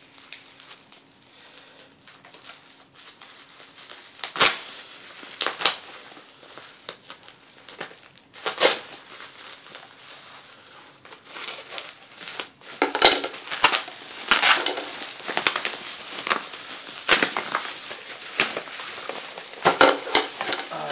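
Plastic bubble wrap crinkling and crackling as it is cut with scissors and pulled apart by hand. The sharp crackles come in scattered bursts at first and grow denser in the second half.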